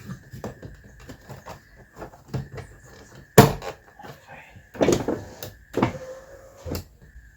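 Car door and its trim being handled: a series of sharp knocks and clunks, four loud ones in the second half. A faint steady high tone runs underneath.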